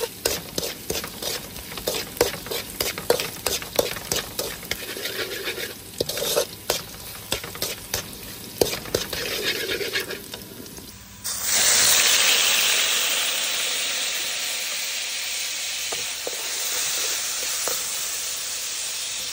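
Metal spatula scraping and clicking against a steel wok as minced garlic is stirred in oil, over a light sizzle. About 11 seconds in it changes abruptly to loud, steady sizzling as the garlic fries hard in hot oil.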